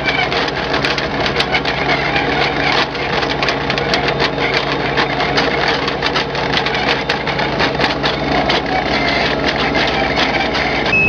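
Heavy machinery running steadily: a loud mechanical hum with several fixed tones, broken by frequent sharp ticks.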